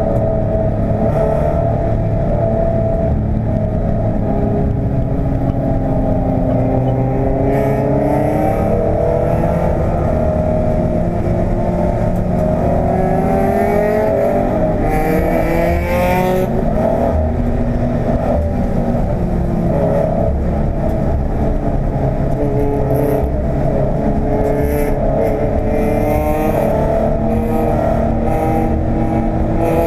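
Toyota 86's 2.0-litre flat-four engine heard from inside the cabin at racing speed, its pitch climbing and falling again and again as it is driven hard through the gears, over constant road and wind noise.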